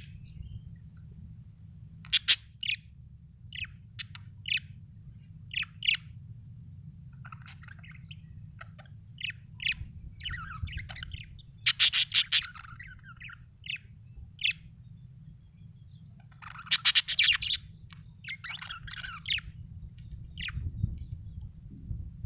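Budgerigar chirping: scattered short chirps, with louder bursts of rapid, harsh calls about two seconds in, around twelve seconds and again around seventeen seconds, over a steady low hum.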